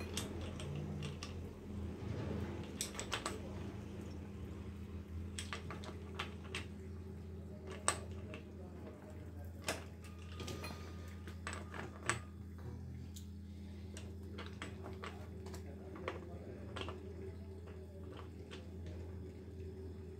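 Irregular metallic clinks and taps of hand tools and bicycle crankset parts being handled, with a few sharper knocks about eight, ten and twelve seconds in, over a steady low hum.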